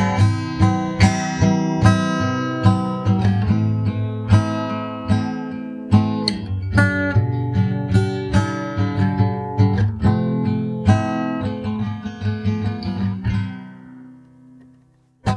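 Instrumental ending of a recorded rock song: strummed guitar chords over bass with a steady beat. The music stops about thirteen seconds in and rings out to silence, with a short click at the very end.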